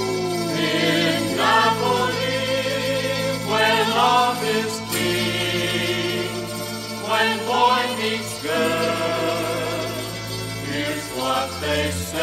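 Music with singing voices over a steady accompaniment.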